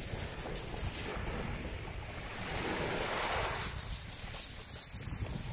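Small sea waves washing in at the shoreline, one surge swelling up about halfway through, with wind rumbling on the microphone.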